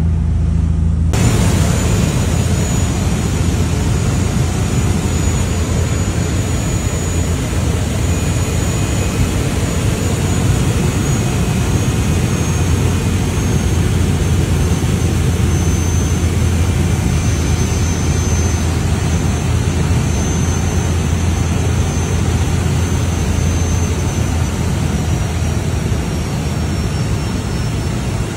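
Cabin noise of a single-engine propeller plane in flight: a loud, steady engine and propeller drone with rushing air. It starts abruptly about a second in, cutting off the lower hum of a boat engine, and a faint high whine runs above it.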